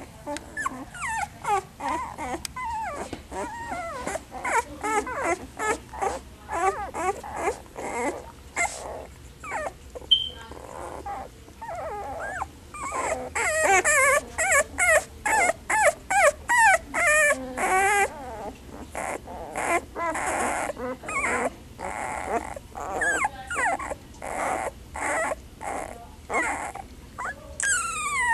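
A litter of young puppies whimpering and squeaking: many short, high, wavering cries overlapping, several a second, growing louder and busier about halfway through.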